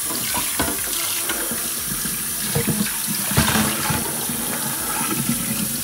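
Tap water running onto a stainless steel pan in a steel kitchen sink while the pan is scrubbed by hand, with a few light knocks in the middle.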